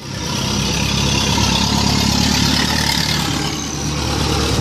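A motor vehicle engine running steadily at idle, under a steady hiss of street noise.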